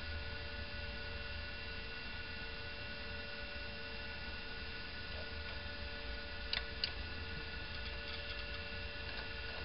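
Steady electrical hum with a thin high whine. Two short clicks come close together about six and a half seconds in.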